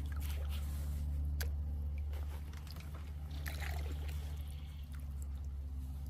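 Kayak paddle strokes: light splashes, drips and trickles of water over a steady low hum.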